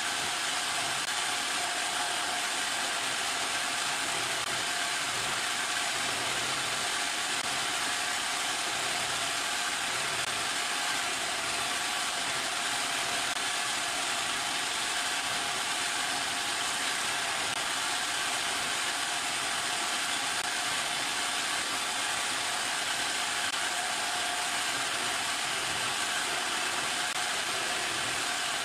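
Homemade electric coconut grater running steadily, its motor spinning the grating blade while a coconut half is pressed against it: a steady motor hum and whine with the hiss of coconut meat being scraped.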